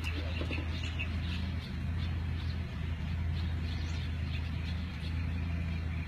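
Steady low rumble, with small birds chirping faintly now and then.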